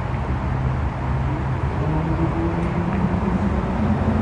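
Fire engine's diesel engine running and revving as the rig pulls out of the station bay, its pitch rising from about two seconds in, over steady street traffic noise.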